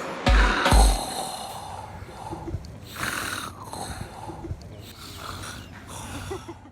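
Two deep bass thumps from the remix's beat in the first second, then a man snoring, a run of uneven breaths that cuts off near the end.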